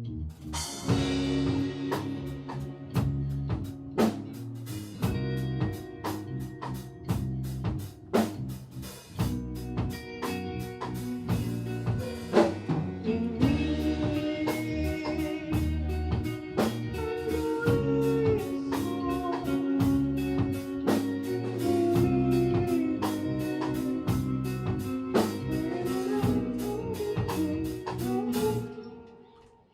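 Live rock band playing: drum kit, electric guitars and bass guitar, with long held guitar notes over the drums. The music dies away quickly just before the end.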